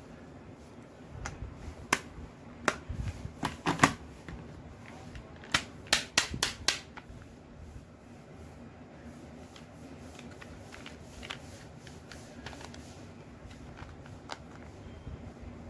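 Stationery being handled: a series of sharp clicks and taps, most of them in the first seven seconds, thinning to a few faint ticks after that.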